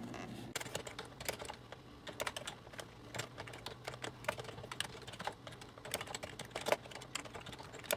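Typing on a computer keyboard: quick, irregular keystroke clicks, several a second.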